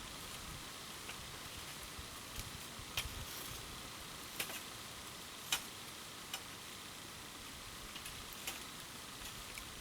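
Wood campfire crackling: a steady hiss with sharp pops and snaps at irregular intervals, the loudest a few seconds in.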